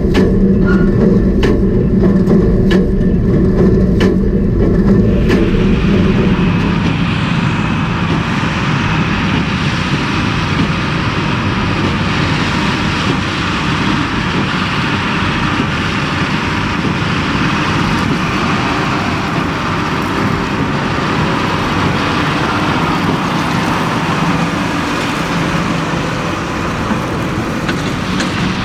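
John Deere 7310R tractor pulling a New Holland BigBaler 1290 Plus square baler while baling straw. Regular clicks sound over the engine's hum for the first five seconds or so, then a steadier, noisier running sound takes over for the rest.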